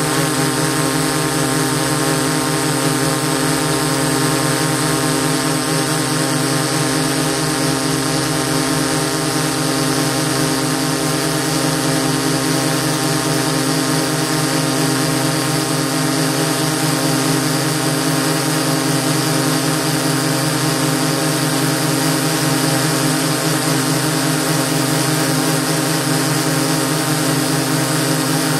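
DJI S800 hexacopter's six electric motors and propellers whirring steadily in flight, picked up by the camera mounted on the aircraft. An even hum made of several steady tones over a rushing hiss, with no change in pitch or level.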